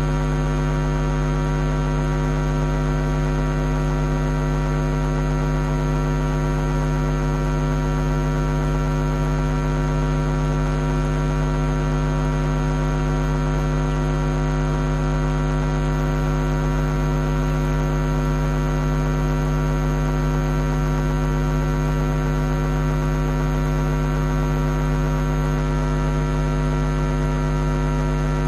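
Steady electrical mains hum with many overtones, unchanging in pitch and level.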